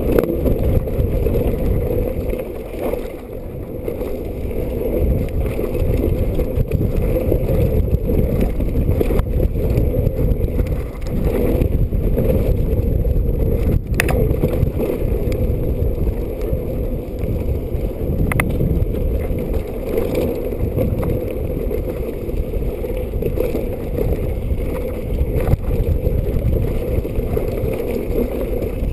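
Muffled rumble of wind and a mountain bike rolling fast down a dirt and gravel trail, heard through the camera's housing, with a few sharp clicks and knocks from the bike as it runs over stones.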